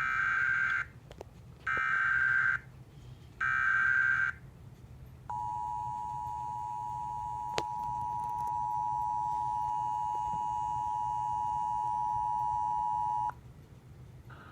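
Emergency Alert System alert opening: three data bursts of about a second each (the SAME header), then, about five seconds in, the two-tone attention signal, a steady dual tone held for about eight seconds before it cuts off. The header codes a severe thunderstorm warning, and the attention signal announces that the spoken warning follows.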